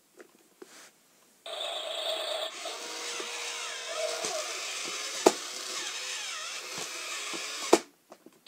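Electronic sound effect from a Dusty toy garbage truck's small speaker: a steady mechanical grinding noise with some sweeping tones, set off by pressing the button on its roof. It starts about a second and a half in, has a sharp click partway through, and stops just after a second sharp click near the end.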